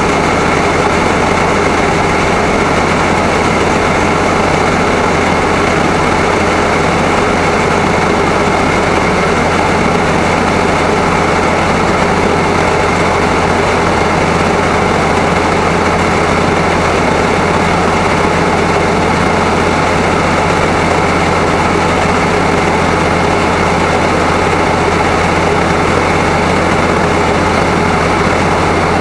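Grain truck's engine running steadily at a constant pitch, a loud low hum with no change through the stretch.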